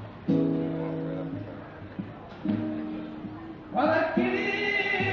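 Flamenco song: a singer holds long, drawn-out notes over guitar, with a louder, higher held note coming in near the end.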